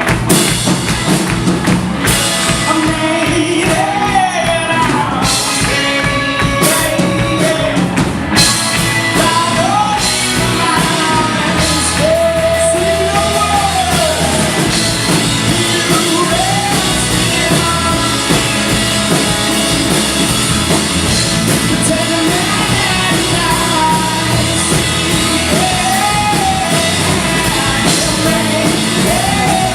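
Rock band playing live, with a lead vocalist singing over full band accompaniment.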